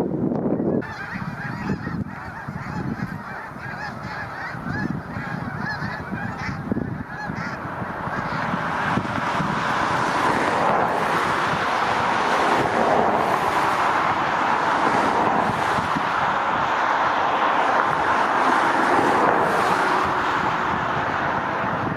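A huge flock of several thousand snow geese calling all at once, a dense unbroken din of honking that grows louder about nine seconds in. Low wind gusts rumble on the microphone during the first few seconds.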